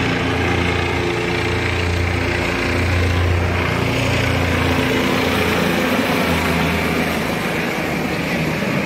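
Helicopter in flight: a steady hum of rotor and engine that grows slightly louder about three seconds in.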